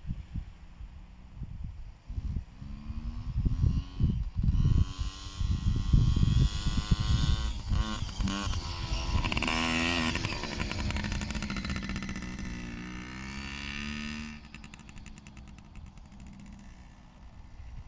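Small children's motocross bike engine running and revving, its pitch rising and falling as it rides around close by, with low wind thumps on the microphone through the first half. A little after the midpoint the sound drops suddenly to a fainter, steady engine note.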